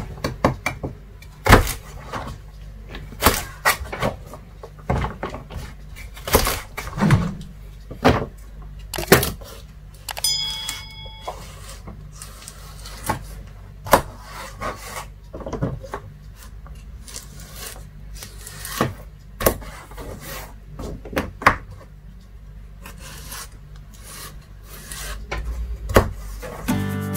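Chef's knife cutting flat green beans on a plastic cutting board: irregular knocks of the blade on the board, roughly one a second. A brief high tone sounds about ten seconds in.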